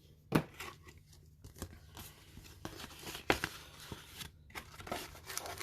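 Rustling and crinkling of booster-pack wrappers and paper envelopes being handled, with scattered short taps and clicks. The two loudest come about a third of a second in and just after three seconds.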